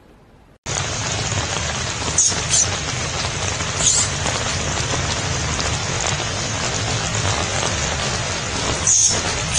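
Steady, loud rain-like hiss that starts abruptly about half a second in, with a few brief high squeaks over it.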